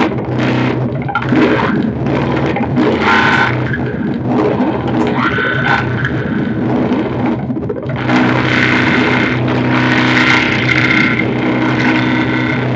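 Looped audio feedback drone run through digital reverb: a steady low hum with overtones under higher ringing tones that swell, shift and fade, growing fuller about two-thirds of the way in.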